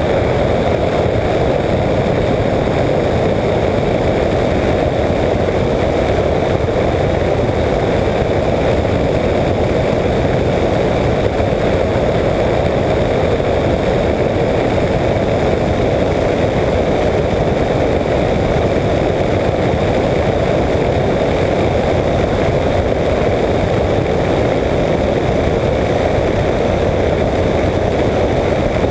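Apollo Jet Star flexwing microlight trike's engine and pusher propeller running steadily in cruising flight, mixed with wind rush over the wing-mounted camera.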